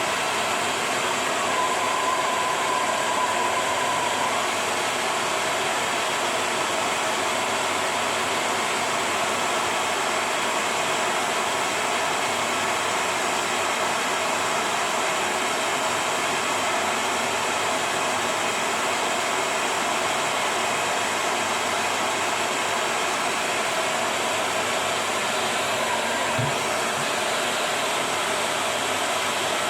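Hair dryer blowing steadily, a continuous even hiss, heating a plastic bottle sleeve so that it shrinks onto a juicer part.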